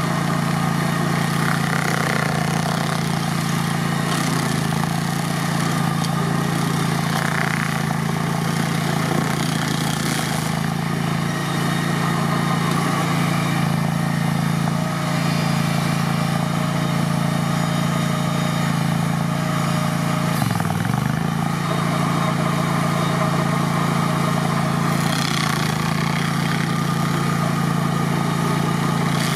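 Vermeer SC30TX tracked stump grinder's engine running steadily at high speed while its cutter wheel grinds a stump into chips. The engine note dips briefly once, about two-thirds of the way through.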